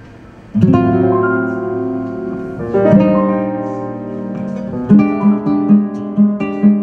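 Amplified acoustic-electric guitar playing: after a brief pause, full chords ring out, and about five seconds in it settles into a rhythmic repeated figure.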